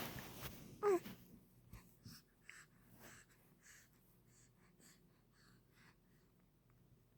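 A baby hiccuping: one short, sharp 'hic' with a little voice in it about a second in, falling in pitch, followed by faint breathing and small mouth sounds.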